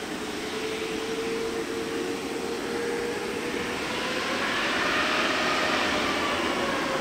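Boeing 777-300 airliner's Rolls-Royce Trent turbofans whining steadily as it taxis, the whine edging up in pitch and a higher whine joining in the second half as the sound grows louder.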